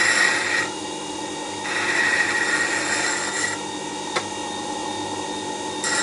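Record Power WG200 wet-stone sharpener running with a steady hum while a bowl gouge is ground against its wet stone, giving rasping grinding noise in stretches: briefly at the start, for about two seconds from around two seconds in, and again near the end. A single sharp click about four seconds in.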